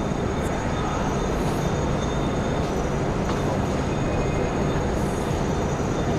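Steady low rumble of background noise, even and unbroken, with no speech.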